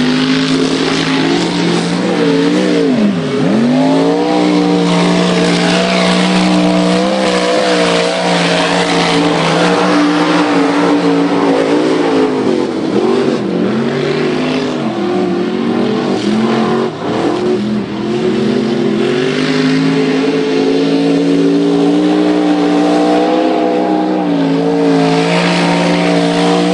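Mud-racing trucks' small-block V8 engines running at high revs. The pitch swoops down a few seconds in and again around the middle as trucks go past. A steady hiss of tires throwing mud and water runs underneath.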